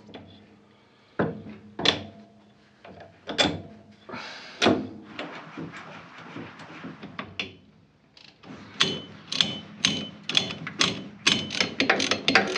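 Scattered metal knocks and clunks as a propeller shaft is offered up and fitted under a Land Rover. From about eight and a half seconds in, a ratchet spanner clicks in quick strokes, about three to four a second, tightening the flange bolts.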